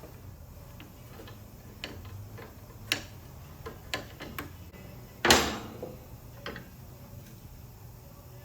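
Irregular clicks and taps of hand tools on metal as a motorcycle floorboard is unbolted and removed, with one loud clank a little past the middle.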